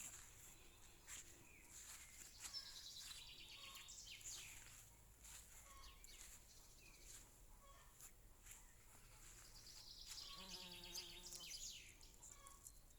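Faint birdsong: small birds chirping, with trilled phrases now and then. A short, lower call comes about ten and a half seconds in.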